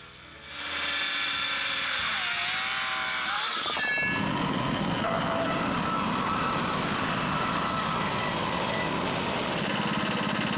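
Engine-driven saw running steadily while milling a log into boards. It comes up about half a second in and turns rougher and lower about four seconds in as it works through the wood.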